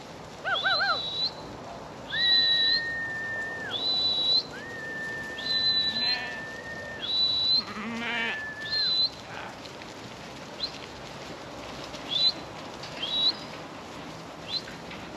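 A series of clear herding whistles, some long steady notes and some short notes that flick upward at the end, as a flock of sheep is driven along. Several sheep bleat among them, near the start and again around the middle.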